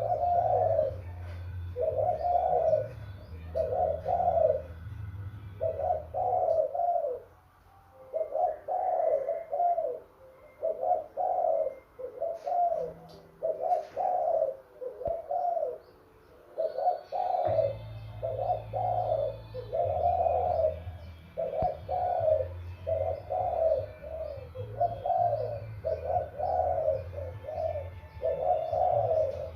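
Young decoy dove cooing over and over, about one coo a second, as it starts its circling courtship display. A low steady hum runs underneath and drops out for about ten seconds in the middle.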